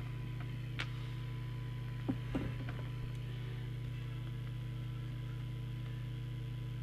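Steady low electrical hum with a thin high tone over it, and a few faint clicks about one and two seconds in.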